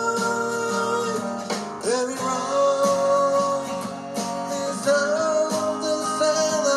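Recorded song with acoustic guitar strumming under a long held melody line, one note sliding up about two seconds in.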